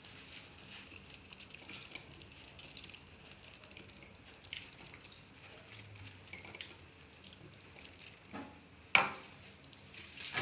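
Ayam varuval (spiced chicken) frying in a large wok, a steady faint sizzle. A single sharp knock about nine seconds in.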